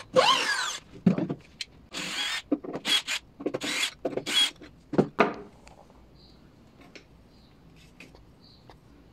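DeWalt drill boring a pocket hole through a Kreg-style jig into wood: the motor spins up with a rising whine, then runs in a series of short bursts. It stops after about five and a half seconds.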